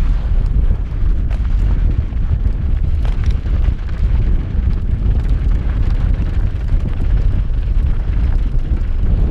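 Wind buffeting the helmet-mounted camera's microphone, a heavy steady rumble, during a fast downhill mountain-bike descent, with the tyres crunching and chattering over loose dirt and small rocks.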